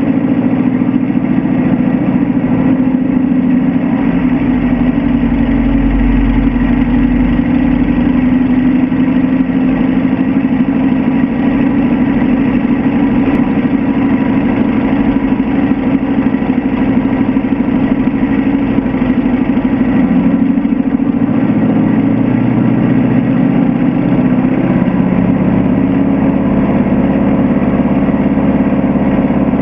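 Schweizer G-164B Ag-Cat crop duster's engine and propeller running steadily, heard from a camera on the lower wing, as the aircraft taxis. About 22 to 25 seconds in the pitch of the engine shifts and the low end grows stronger as power comes up for the takeoff roll.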